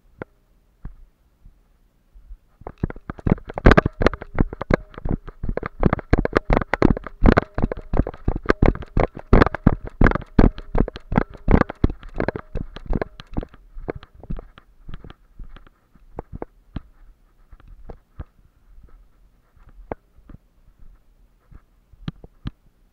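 Dense crackling and rustling of dry brush and footsteps right at a body-worn camera's microphone as the wearer pushes through scrub, heavy from a few seconds in and thinning out over the second half.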